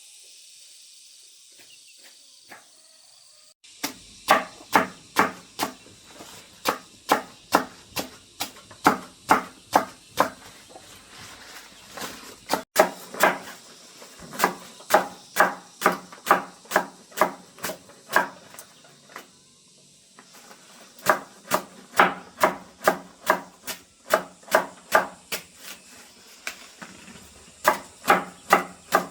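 A hand tool striking something solid over and over, about three blows a second, in runs with short pauses between them, after a few quieter seconds at the start.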